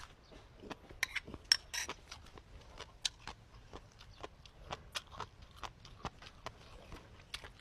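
Irregular light clicks and clinks of eating utensils against dishes, two or three a second.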